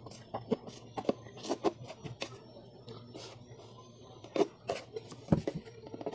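Scissors cutting through a stiff plastic 1-liter motor-oil bottle: irregular short snips and crunches as the blades bite the plastic, with a pause in the middle before a few more cuts.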